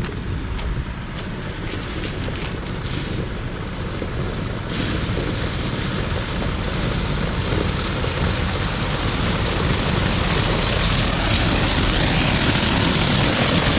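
Dump truck unloading crushed limestone road base, its diesel engine running under a steady rushing of sliding gravel that grows louder from about five seconds in.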